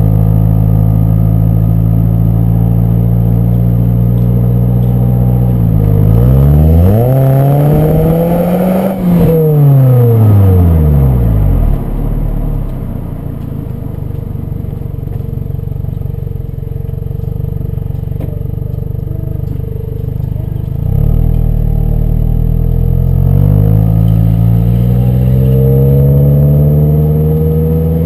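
Kia Cerato Koup's stock exhaust, heard close at the tailpipes while driving. The engine note runs steady, rises steeply about six seconds in, then falls away and runs quieter for several seconds before climbing again near the end.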